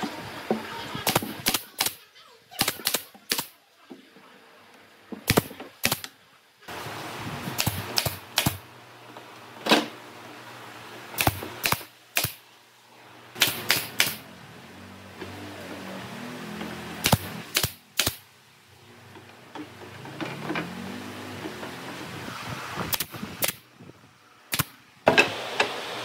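Pneumatic nail gun firing nails into pine pallet boards: sharp snaps, mostly in quick groups of two or three, about two dozen in all, with pauses between the groups.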